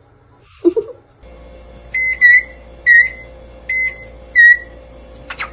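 A parrot mimicking an electronic appliance beep: five short whistled beeps, alternating a flat tone with one that dips in pitch, over a low steady hum. A short knock comes just before, under a second in.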